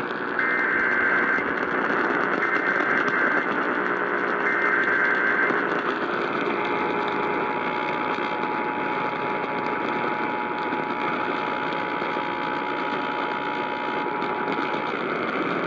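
Emergency Alert System signals received over the radio through heavy static: three short warbling SAME data-header bursts about a second apart, then the steady two-tone EAS attention signal from about six seconds in, which breaks off near the end. Together they announce that a new weather warning is about to be read.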